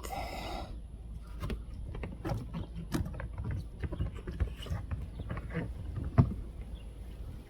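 Irregular taps, rubs and knocks of hands working a rubber windshield seal strip into place, with a short rustle at the start and one sharper thump about six seconds in.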